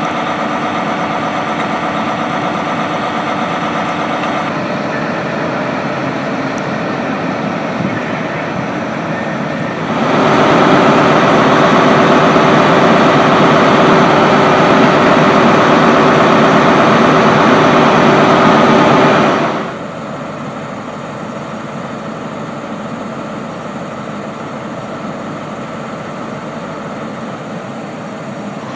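Class 43 HST diesel power cars idling at a platform: a steady engine hum with a whine over it. It comes in separate stretches that change level abruptly, and is loudest from about ten seconds in to nearly twenty seconds in.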